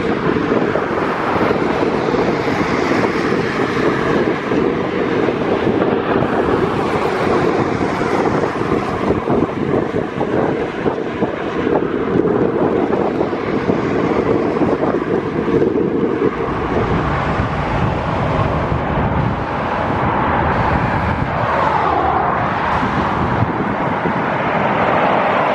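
Motorway traffic going by, mixed with heavy wind rumble on the microphone; no clear engine note stands out. About two-thirds of the way through the noise turns deeper.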